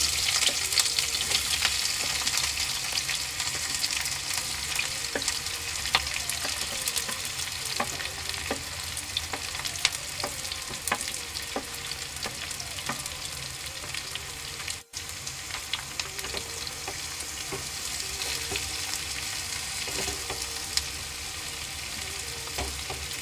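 Sliced onions sizzling and crackling in hot mustard oil in a kadai, stirred with a wooden spatula. The sizzle is loudest as the onions go in, then settles to a steady frying hiss, breaking off for an instant about fifteen seconds in.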